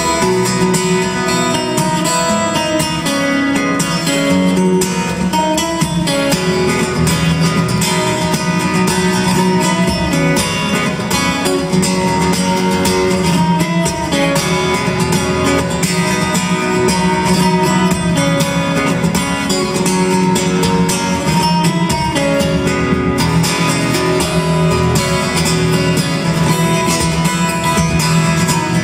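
Solo acoustic guitar played fingerstyle, plucked melody and bass notes together, running continuously at a steady level.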